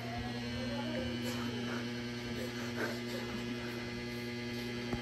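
Steady low hum made of several held tones, with faint scattered sounds over it.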